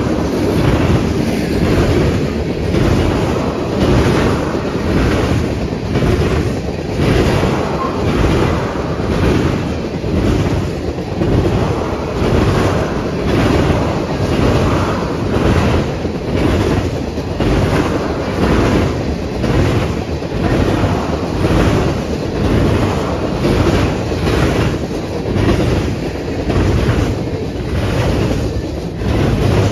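Freight train cars rolling past close by, steel wheels clattering over the rail joints in a steady, even rhythm over a continuous rumble.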